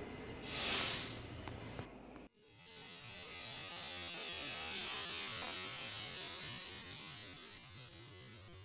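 Firework black powder burning in an open tube after being lit with a match: a short hiss about half a second in, then a long fizzing rush that swells over a couple of seconds and slowly fades, with no bang.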